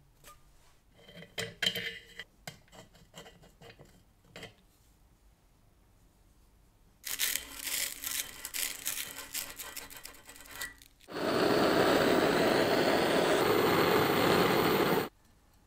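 A gas blowtorch burns with a steady, loud hiss for about four seconds and then cuts off sharply; it is heating a brass fitting on a copper pipe for soldering. Before it come a few light clicks of handling, then a copper tube clamped in a vise being scrubbed with abrasive.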